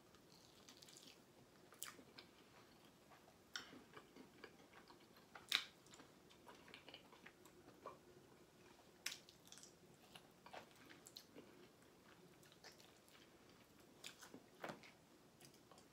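A person chewing food quietly, with scattered wet mouth smacks and clicks, the loudest about five and a half seconds in.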